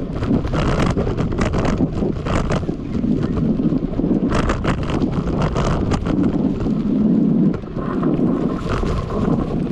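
Wind buffeting the microphone of a camera riding on a moving mountain bike, with repeated clatters and rattles from the bike jolting over a rough, leaf-strewn dirt trail.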